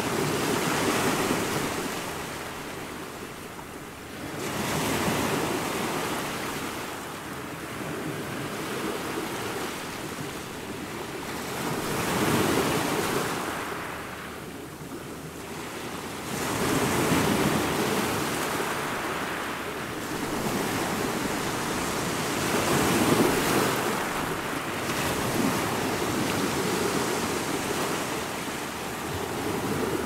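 Ocean surf breaking over rocks: a continuous rushing wash that swells with each breaking wave and eases between them, every few seconds.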